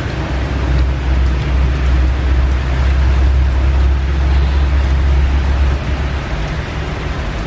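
Heavy rain hissing steadily, with the low engine rumble of a motorcycle passing close by that eases off about six seconds in.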